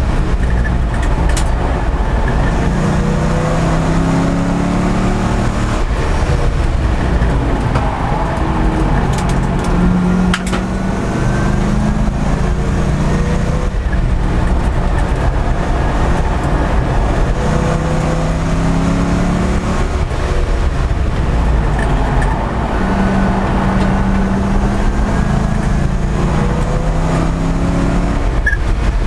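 Race car engine heard from inside the cockpit at speed on track. The engine note rises in repeated pulls and drops back as the car brakes and shifts, over steady loud wind and road noise.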